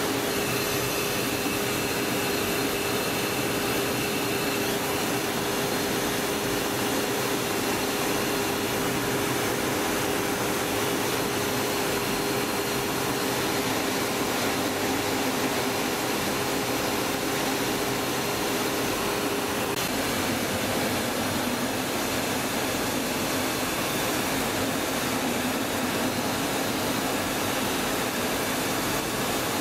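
Steady roar of engine and airflow noise inside the cockpit of a Tornado GR4 jet in fast low-level flight. A steady low hum runs underneath and stops about twenty seconds in.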